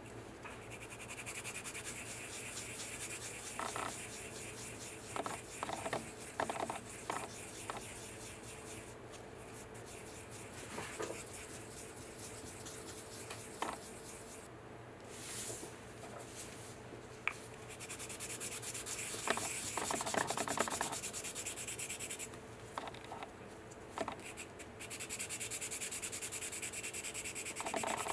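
A sanding stick rubbed in fast back-and-forth strokes over a facet of a UV-cured resin 3D-printed diamond model, smoothing its printed surface. The strokes stop briefly a few times, with a few small knocks from handling.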